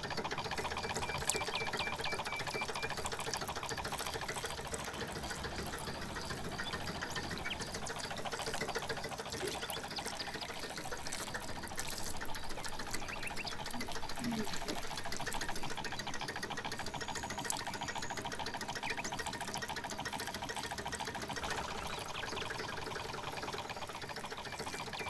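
Miniature model water pump running steadily, its small motor whirring while the outflow pours and splashes onto wet mud.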